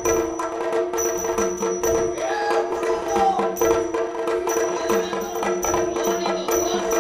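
Yakshagana puppet-theatre music: a held drone under drums and small hand cymbals struck in a quick, regular beat.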